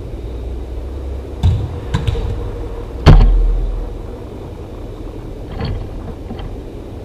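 A football slamming into the cage's side wall right by the microphone about three seconds in: a loud bang with a low boom that dies away over about a second. Lighter knocks from kicks and the ball come before and after it, over a steady low rumble.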